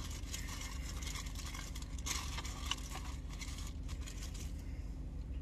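Paper fast-food sandwich wrapper crinkling and rustling as a breakfast sandwich is unwrapped and handled, easing off near the end, over a steady low hum.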